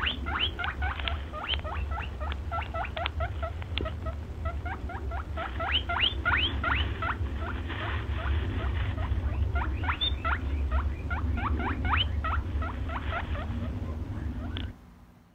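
An animal giving a rapid string of short, rising squeaks, about three or four a second, over a steady low hum; the squeaks cut off suddenly near the end.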